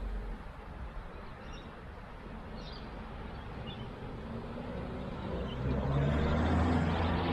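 Street traffic: a passing vehicle fades away at the start, then another motor vehicle's low engine hum grows louder from about five seconds in as it approaches. A few faint high chirps sound in the quieter middle.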